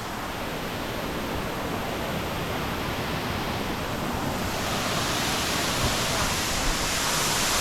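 Waterfall pouring heavily, a steady rush of falling water that grows a little louder about halfway through.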